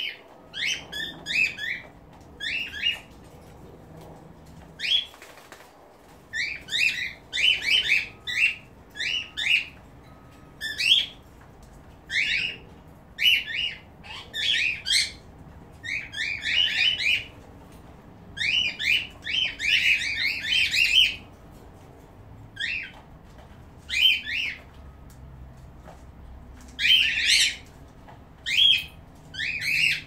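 Pet cockatiels and other small parrots calling: short, shrill, repeated calls in quick bursts of two to five, with pauses of a second or two between bursts.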